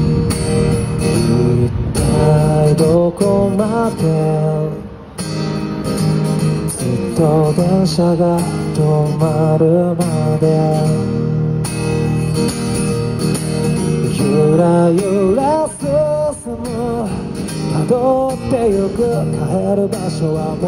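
A man singing a slow pop ballad over a strummed acoustic guitar.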